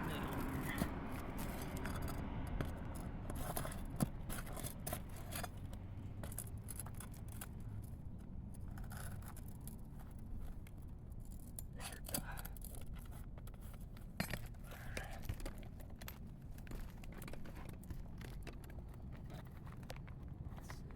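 Scattered clicks and scrapes of a hand tool working under an asphalt shingle to get at a roofing nail, over a steady low rumble.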